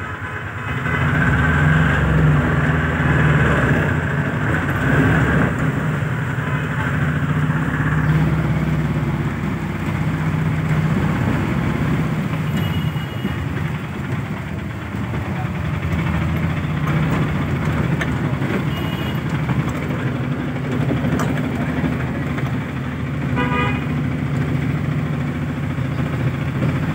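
Vehicle engine running steadily, heard from inside the cabin in wet street traffic, with a vehicle horn sounding briefly near the end.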